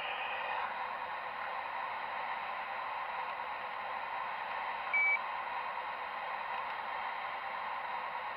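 Magom HRC metal RC excavator running, a steady hissing whine from its hydraulic pump and motors as the boom lowers and digs. A single short high beep cuts in about five seconds in.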